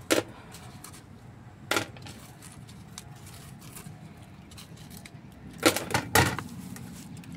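Sharp clicks and knocks of plastic flowerpots being handled and bumped together while a succulent is worked loose for repotting: one at the start, one just under two seconds in, and a quick cluster of several about six seconds in.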